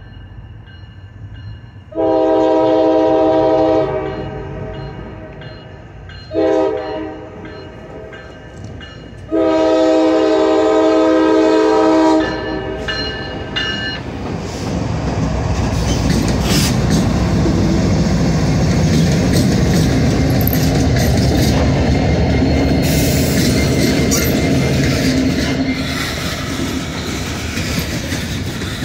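Locomotive K5LA chime horn blowing a long blast, a short blast and another long blast as the train approaches a grade crossing. Then the lead GE ES44DC locomotives pass close by and loaded freight cars roll past, wheels clacking over the rail joints.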